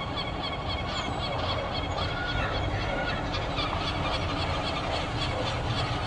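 Adult lesser black-backed gulls calling over and over in a rapid, steady series of harsh calls, scolding the juvenile gulls beside them.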